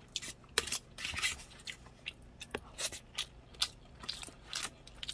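Close-up eating sounds: a spoon scraping and scooping rice in a plastic meal tray, and chewing, as a few irregular short clicks and scrapes a second.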